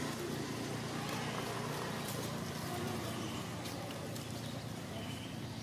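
Steady outdoor background noise with scattered faint clicks and a few short, high chirps near the end.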